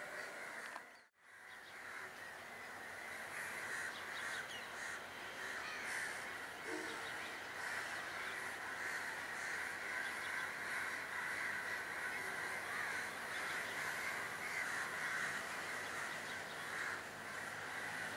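Many crows cawing at once, a continuous overlapping chorus. The sound drops out completely for a moment about a second in.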